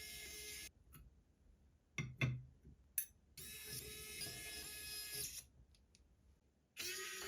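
Small electric screwdriver whirring in short runs of one to two seconds at a steady pitch, with a few sharp clicks of handled parts between the runs.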